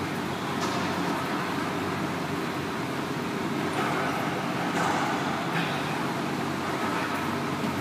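Racquetball rally in an enclosed court: a few faint, sharp ball strikes off racquets and walls over a steady loud hum.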